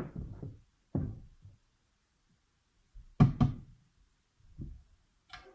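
A series of separate knocks from hard objects being handled and set down on a work surface. Dull thumps come near the start and about a second in, and a sharp double clack about three seconds in is the loudest, with another sharp click near the end.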